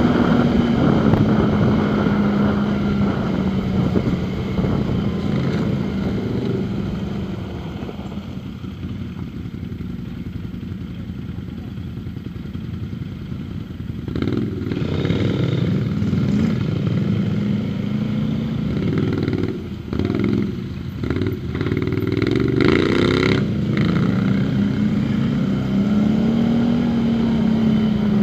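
Quad bike (ATV) engine running along a dirt trail, easing to a quieter, lower running for several seconds near the middle, then revving up and down unevenly before running steadily again.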